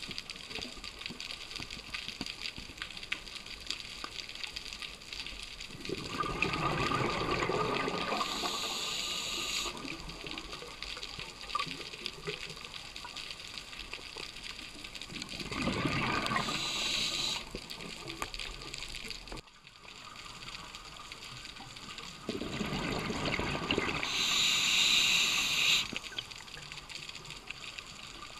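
A scuba diver breathing through a regulator: three breaths about eight seconds apart, each a rush of exhaled bubbles followed by a short high hiss from the regulator, over steady underwater background noise.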